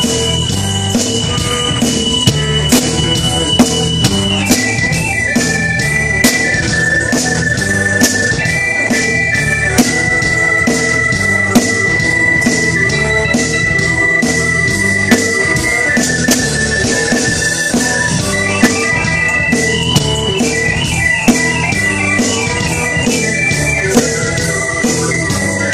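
Live blues band playing an instrumental stretch: a drum beat over a repeating low riff, with a lead instrument holding long high notes that step between a few pitches.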